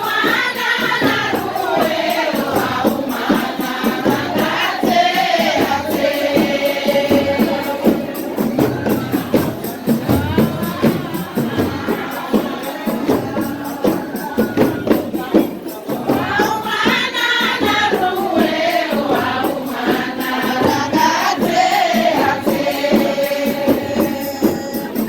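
Traditional North African wedding music: voices singing together over steady hand percussion with jingling frame drums or tambourines. The same sung phrase comes round twice.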